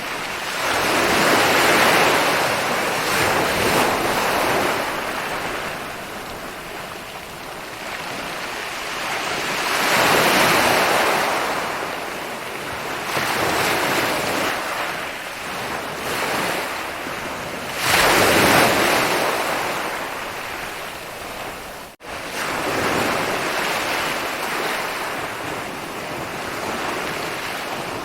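Ocean waves rolling in and breaking on a shore, each one surging up and washing back every few seconds. The loudest break comes about two-thirds through, just before the sound drops out suddenly for an instant.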